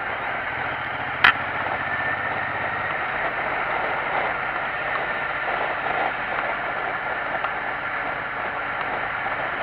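Motorcycle riding at road speed, heard through a camera mounted on the bike: a steady rush of wind and road noise, with the engine's low hum plain for the first few seconds. A single sharp click sounds about a second in.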